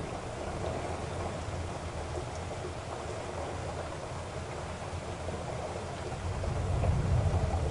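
Car driving in rain: a steady hiss of rain and tyres on the wet road over a low road rumble. The rumble swells about six seconds in.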